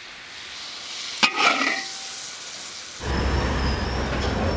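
Hiss of hot, steaming braised pig trotters being spooned from the wok onto a plate, with a metal spoon clinking against the plate about a second in. About three seconds in the sound cuts abruptly to a steady low rumble with a faint high whine.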